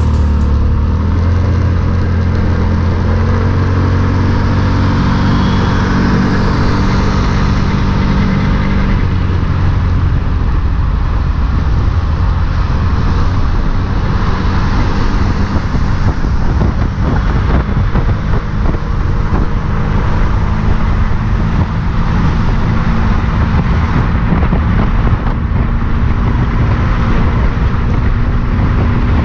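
A motor vehicle driving on the road, recorded from a camera mounted on it: a steady engine hum, clearest in the first several seconds, under continuous road and tyre noise.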